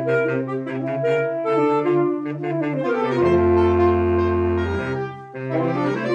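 Saxophone quartet of soprano, alto, tenor and baritone saxophones playing in parts. Moving lines settle about three seconds in onto a chord held for nearly two seconds over a low baritone note, which breaks off briefly before a new phrase starts near the end.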